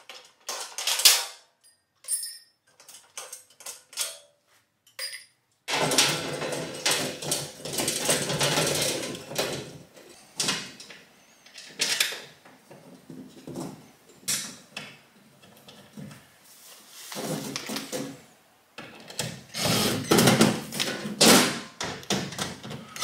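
Cordless drill driving the screws that fasten a breaker panel's metal cover: one long run about six seconds in, then several shorter ones. Before it, clicks and clatter as the metal cover is handled and set in place.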